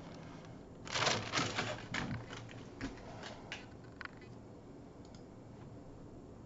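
Light clicks and taps: a quick flurry about a second in, then a few scattered single ticks.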